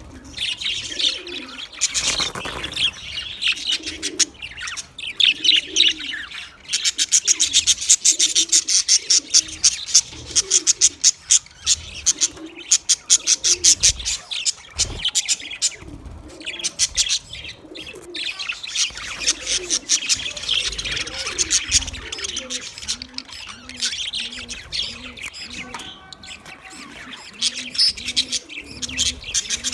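A flock of budgerigars chirping and chattering in rapid, continuous bursts. A low cooing call repeats about once a second beneath them.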